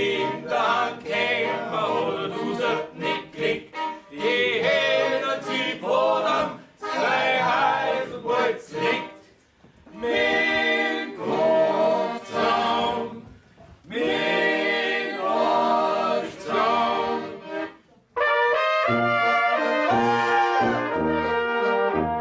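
Alpine folk band music: flugelhorns and tenor horns over tuba and accordion, playing in short phrases broken by brief pauses, then a longer unbroken stretch near the end.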